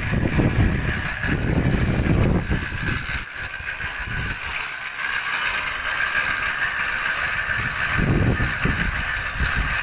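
Long-arm paddlewheel aerator running: a motor on the bank turns a long shaft of paddlewheels that churn and splash the pond water in a steady rush. Low rumbling surges come near the start and again near the end.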